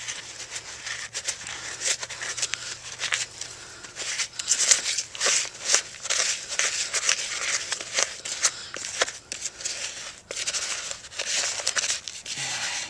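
Wooden stick stirring and scraping a lumpy, gritty mix of cement and sodium silicate against the sides and bottom of a plastic tub: rapid, irregular scratchy scrapes with a short pause about ten seconds in.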